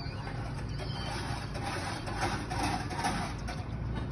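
Pickup truck rolling slowly with a zip tie fastened around its driveshaft; the tie's tail slaps the underbody as the shaft turns, a rapid ticking, loudest in the middle, over a low steady engine hum. It is the noise the driver took for something dragging behind the truck.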